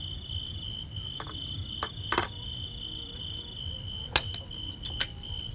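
Crickets trilling steadily at a high pitch, with several sharp clicks or knocks scattered through, the loudest about four seconds in.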